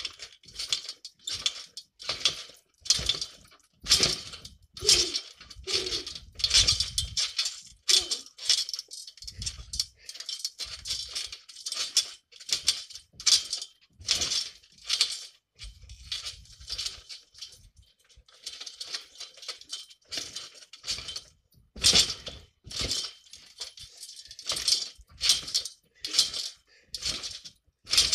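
Garden trampoline in use: its metal springs clink and creak with each bounce, about one to two bounces a second, and the mat gives a dull thud on some of the landings.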